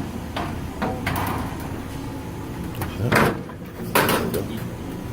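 Steady running noise of an industrial conveyor furnace, with a few sudden knocks or clunks, the loudest two about three and four seconds in.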